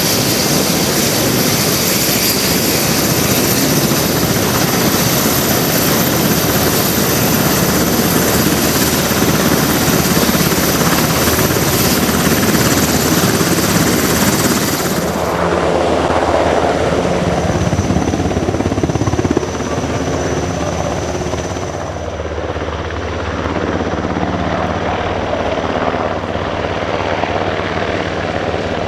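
UH-60J Black Hawk helicopter running with its rotors turning: a steady high turbine whine over rotor noise. Partway through, the whine drops out and the helicopter is heard airborne, lifting away.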